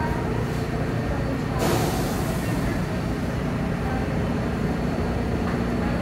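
R62A New York City subway train running, a steady low rumble. A short hiss rises over it about a second and a half in and lasts about a second.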